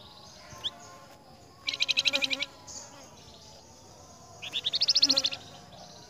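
Flamboyan songbird giving two rapid buzzy trills, each under a second, the second rising in pitch.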